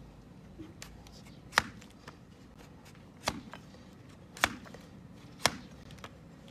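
A large flat hoof-trimming blade slicing down through a donkey's hoof horn, four sharp cracking cuts spaced about a second apart. The first cut, about one and a half seconds in, is among the loudest.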